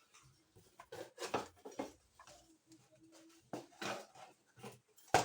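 Small lidded butter and jam dishes being handled, giving a few light knocks, clinks and rubbing sounds at irregular intervals.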